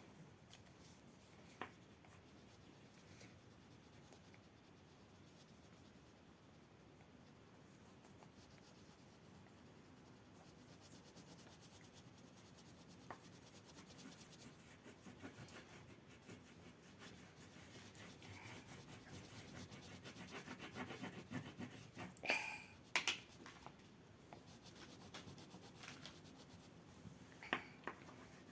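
Faint scratching of a drawing tool rubbing across paper, growing busier toward the middle. A few sharp taps come through, the loudest a little after twenty seconds and one near the end.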